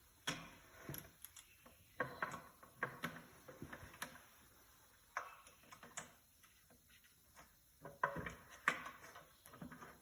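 Irregular clicks, clinks and knocks of metal transmission parts being handled and shifted inside an E4OD transmission case, with a few short scrapes.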